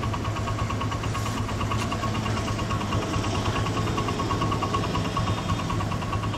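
TVS Apache RTR 160's single-cylinder four-stroke engine idling steadily, a low hum with a fast, even ticking over it, while it runs with engine-flush oil added to the crankcase.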